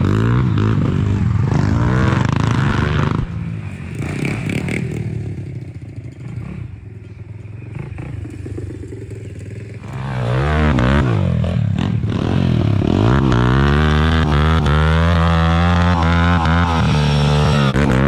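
Dirt bike engines revving: loud close revving for the first few seconds, then quieter and more distant for several seconds. About ten seconds in, a dirt bike revs up and holds high revs while its rear wheel spins in the dirt, throwing a roost.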